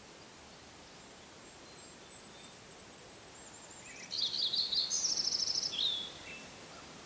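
A songbird sings one song of about two seconds: a jumble of quick high notes, then a fast trill, ending on a lower slurred note. Fainter thin high calls come before it, over a steady background hiss of the forest.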